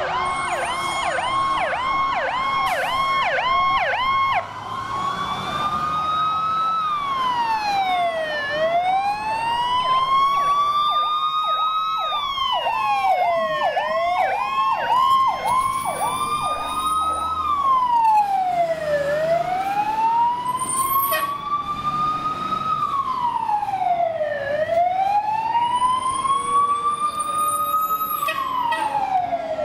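Fire trucks' electronic sirens. A fast yelp runs for the first four seconds, then the sirens settle into a slow wail that rises and falls about every five seconds. A second siren overlaps at times, and a fast yelp cuts in again around the middle.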